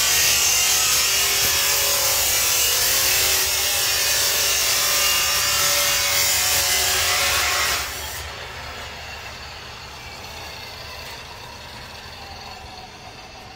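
Steady loud hiss-like noise of machinery running in a workshop, dropping to a much quieter hiss about eight seconds in.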